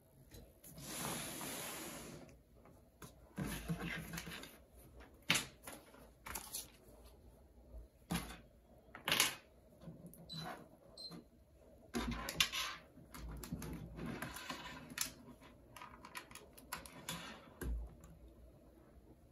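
Small objects being handled on a desk: scattered sharp clicks and taps with bursts of rustling, as things are picked up, set down and switched on.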